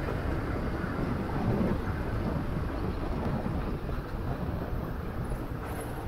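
Steady wind noise on the microphone of a moving motorcycle, a low rushing sound with road noise beneath it.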